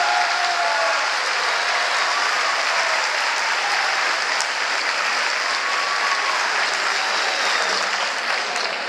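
The last sung note of a choir dies away at the very start, then an audience applauds steadily, tailing off slightly near the end.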